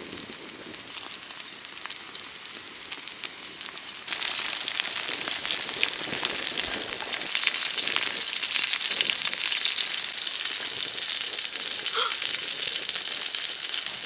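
Shrimp and green onion pancake batter frying in oil on a round griddle pan, a steady sizzle of fine crackles that gets louder about four seconds in.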